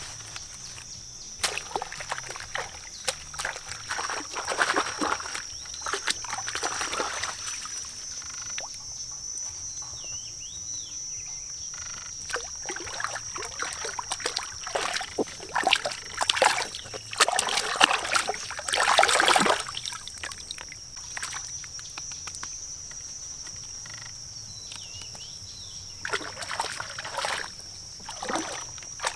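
Water splashing and sloshing in irregular surges, strongest about two-thirds of the way through, over a steady high-pitched chorus of wildlife.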